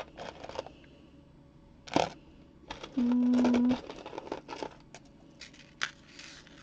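Costume jewelry being handled: scattered light clicks and clinks of metal pieces and a fine chain, with one sharper click about two seconds in. A little past the middle, a short, steady, low hum lasts under a second and is the loudest sound.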